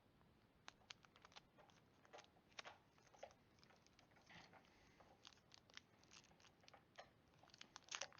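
Faint scattered clicks and light crinkles of trading cards and a foil booster pack being handled.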